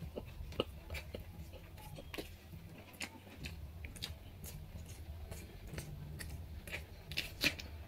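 Eating rice by hand: irregular soft clicks and scrapes of fingers mixing rice on a plate, with chewing, over a low steady hum.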